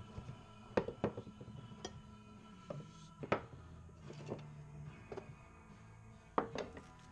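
Steel files clinking and knocking against one another and the wood as they are pulled from a wooden rack and set down on a board: about ten sharp clinks, the loudest about three seconds in.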